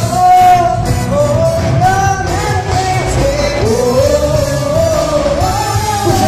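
Band music with a sung melody over a continuous backing of drums and bass.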